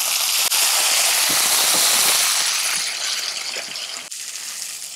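Chopped tomatoes sizzling as they hit hot oil in a kadai: a loud hiss that fades through the second half, with a few light knocks of a wooden spatula stirring them.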